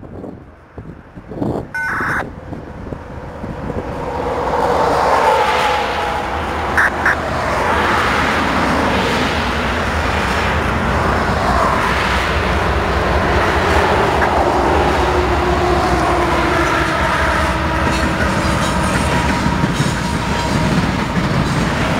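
CSX freight train led by diesel locomotives approaching and passing: the locomotives' engines and the wheels on the rails build up about four seconds in and then run loud and steady as the cars roll by. Two short high tones sound about seven seconds in.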